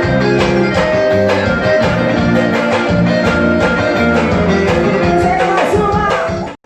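Pisadinha forró music with a steady beat and sustained melodic notes. It cuts out abruptly for a split second near the end.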